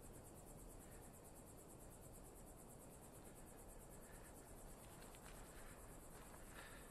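Near silence: faint, steady outdoor ambience.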